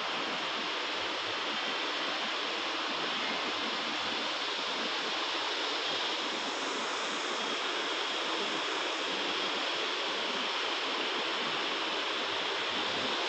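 A steady, even rushing hiss at a constant level, with no distinct events in it.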